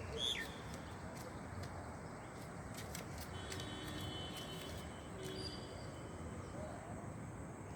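Steady outdoor background noise with a few short, high bird chirps and scattered faint clicks.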